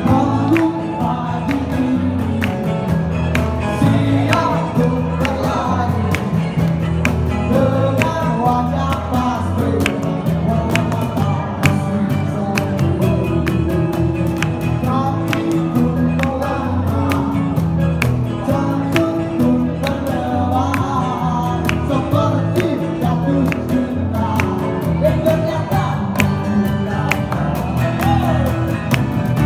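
Live folk band playing with a male lead singer: bowed violin, strummed acoustic guitars and bass guitar keeping a steady beat.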